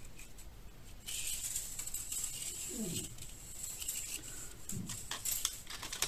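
Metal ball chain rattling and clicking as it is handled and run through the fingers, starting about a second in, with short clicks toward the end.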